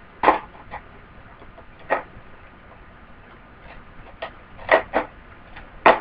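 Irregular short clicks and taps, about seven in all, from small objects being handled as packaging is worked open, with a louder click near the end.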